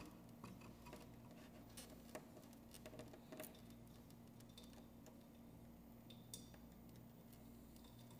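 Near silence: a faint steady hum with a few scattered light clicks and taps.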